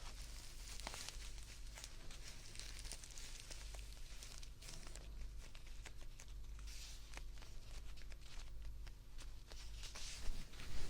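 Close-miked rustling and crinkling handling sounds with many small clicks, over a steady low hum. A couple of louder knocks come near the end.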